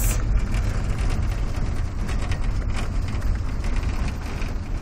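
A van driving along a road, heard from inside the cab: a steady low engine and road rumble with a rushing hiss over it.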